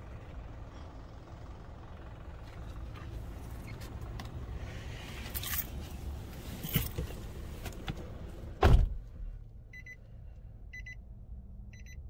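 Nissan X-Trail door shutting with one loud thump, after a few lighter knocks and handling sounds in the cabin, and the outside rumble drops away at once. Then the dashboard warning chime beeps three times, about a second apart, with the cluster's 'No Key Detected' warning showing.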